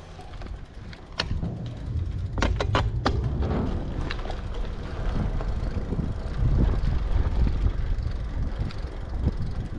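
Riding noise from a bicycle: wind rumbling over the action-camera microphone, louder from about a second in, with a few sharp clicks and knocks from the bike early on.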